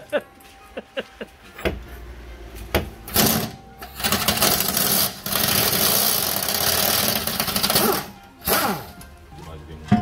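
Pneumatic air tool running on the car's rear suspension bolts: a couple of short bursts, then one long run of about four seconds starting about four seconds in, and a last short burst near the end.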